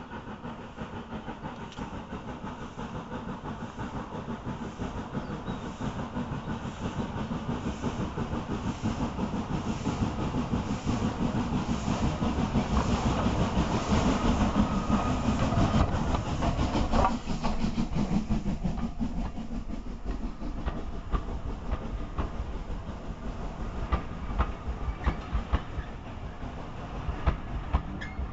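Steam locomotive hauling a passenger train, approaching and passing close by: its regular exhaust beats grow louder to a peak about halfway through as the engine goes past, then the coaches roll by with wheels clicking over the rail joints.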